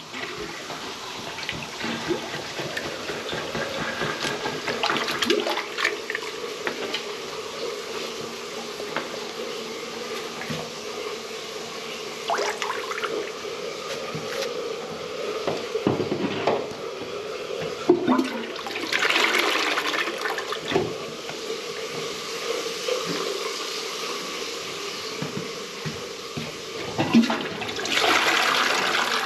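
A blocked toilet being worked with a plunger, water sloshing in the bowl with a faint steady hum underneath. The toilet is flushed with a rush of water about two-thirds of the way through and again near the end, the water swirling away as the blockage clears.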